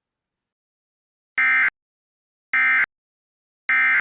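Emergency Alert System end-of-message signal: three short, identical blips of digital data tone about a second apart, the SAME code that closes the alert.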